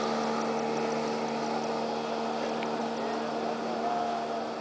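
Motorboat engine running steadily as it tows a water skier, a level hum that fades a little as the boat pulls away.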